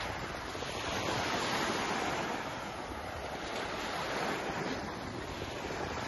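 Small waves breaking and washing up a sandy shoreline, a steady wash of surf that swells and eases, with wind on the microphone.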